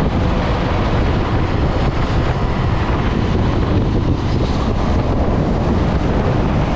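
Steady wind buffeting on the microphone while riding a Honda CB 250F Twister motorcycle at highway speed, with the bike's engine and road noise underneath.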